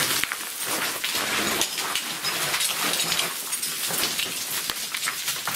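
Boots scrambling over loose rock and gravel: a steady run of gritty crunches and small clicks.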